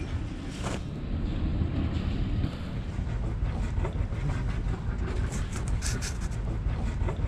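Wind buffeting the camera microphone, a steady low rumble, with a few light knocks about five to six seconds in.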